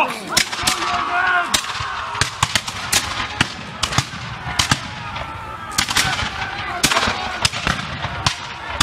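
Black-powder muskets firing blanks in a ragged, scattered volley: about twenty sharp shots at irregular spacing, some close together. Shouting voices are heard in the first second or so.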